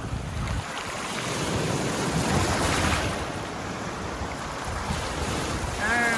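Lake Huron waves washing onto the shore, with wind rumbling on the microphone. The wash swells and eases, loudest a couple of seconds in.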